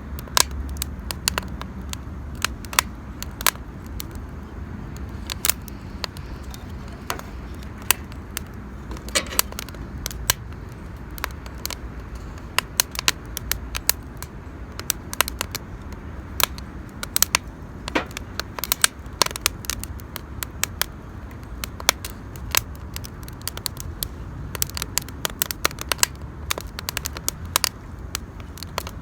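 Wood campfire crackling, with many irregular sharp pops and snaps over a low steady rumble.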